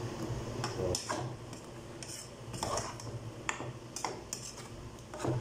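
Metal spoon stirring thick mung bean stew in an aluminium pot, clinking against the pot's side about ten times at irregular intervals, over a steady low hum.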